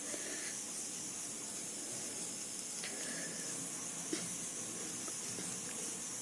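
Faint steady hiss, with two soft clicks about three and four seconds in: a spoon touching the dish as lamp soot is stirred into a few drops of castor oil to make kajal.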